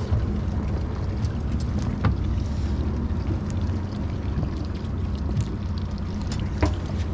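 Low steady hum of a boat on the water, with wind on the microphone and scattered small clicks and knocks as a bait fish is handled and hooked.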